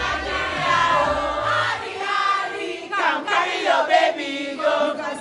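Live concert music: a bass-heavy beat under singing voices, with the bass cutting out about a second and a half in and the singing carrying on over crowd noise.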